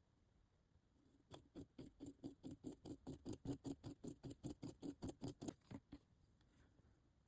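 Quick, evenly paced scraping or rubbing strokes of a hand tool on a small workpiece, about five a second. They start about a second in and stop just before the end.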